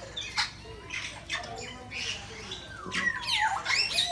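Parrots squawking and calling: a few short harsh squawks, then from about three seconds in a louder run of overlapping whistled calls that slide up and down in pitch.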